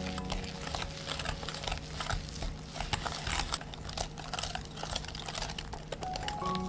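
A wire balloon whisk working flour into thick madeleine batter in a glass bowl: quick, irregular clicks and scrapes of the wires against the glass, mixed with the wet noise of the batter.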